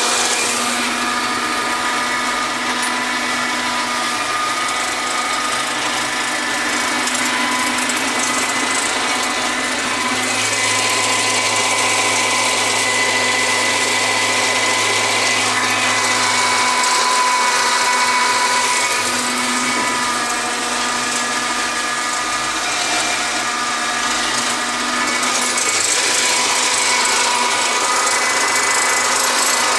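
Tractor engine and the PTO-driven flail rotor of a Hayes 2.4 m flail mower running steadily while cutting thick, long wetland grass, with a steady hum of several tones.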